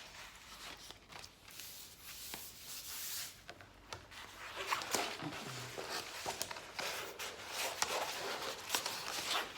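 A rolled diamond painting canvas being unrolled and pressed flat by hand, rustling and crinkling with small taps and clicks that grow busier about halfway through.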